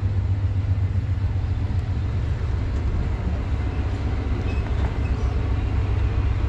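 Steady low rumble of a moving passenger train, heard from inside the carriage as it runs along the track.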